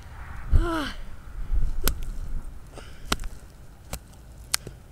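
A person's short cry with a thump about half a second in, then four sharp clicks spread over the next few seconds.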